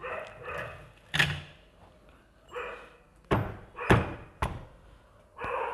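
Sharp knocks and clanks of metal parts being handled during motorcycle engine reassembly, four or so in a few seconds, the loudest about three and four seconds in.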